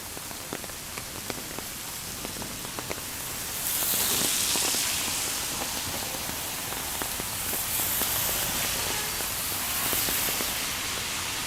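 Rain falling, with scattered close drops ticking sharply in the first few seconds. About four seconds in a louder hiss swells up, and it rises again twice later.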